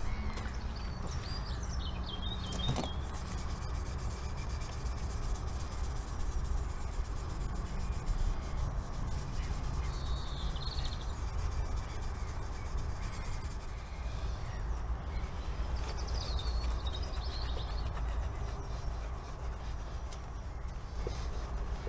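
Fine 0000 wire wool rubbing steadily over an alloy motorcycle engine casing, a soft scratchy sound. Birds chirp briefly several times over a low outdoor rumble.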